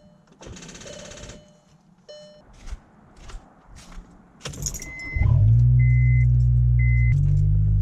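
Dashboard warning chimes and a short buzz with the ignition on, a few clicks, then the VW Golf R's turbocharged four-cylinder engine catches about five seconds in and settles into a steady idle, with three short beeps over it. This is the first start after the cam adjuster, cam solenoid, timing chain and tensioner were replaced.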